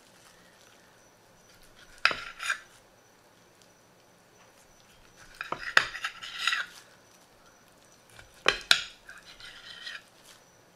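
Kitchen knife clicking and scraping against a ceramic plate as it chops soft avocado and raw tuna, in three short bursts of sharp clicks with pauses between.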